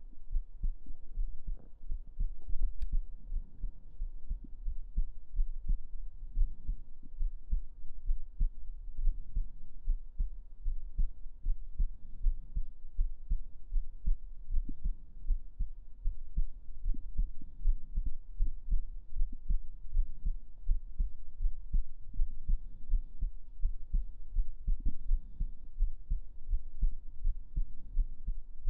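A person's heartbeat heard close up at the chest: low thumps repeating in a steady rhythm.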